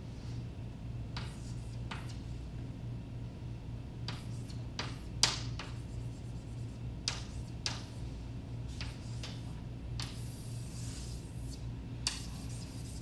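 Chalk tapping and scraping on a blackboard as numbers are written, a run of sharp ticks with the loudest about five seconds in, then longer scrapes near the end as a circle is drawn. A steady low hum runs underneath.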